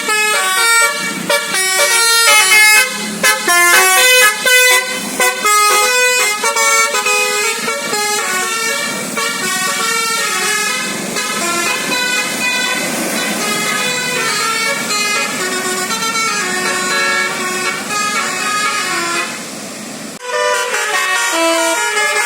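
A bus's 'telolet' musical air horn (a Basuri-type horn) playing a tune of quick, stepped notes. The notes break off briefly near the end and a new tune starts.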